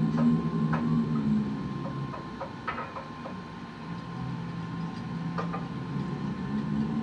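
A steady low hum that drops back in the middle and swells again near the end, with a few light clicks scattered through it.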